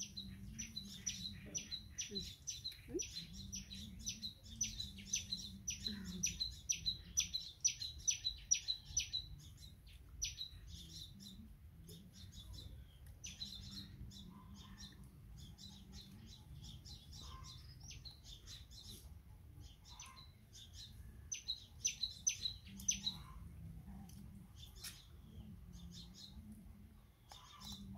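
Small birds chirping in quick repeated series of short, high chirps, several a second, busiest in the first third and again briefly about three quarters of the way in. A faint steady low hum lies underneath.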